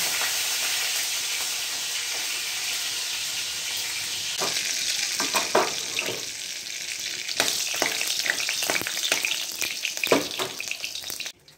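Nigella seeds and split chillies sizzling in hot oil in a kadai: a steady hiss that turns into sharp crackling and popping from about four seconds in, then stops abruptly near the end.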